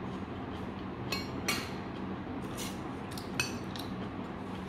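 Metal spoon clinking and scraping in a stainless steel rice bowl while eating: a few short scrapes and clinks, with one sharp clink about three and a half seconds in, over a steady low hum.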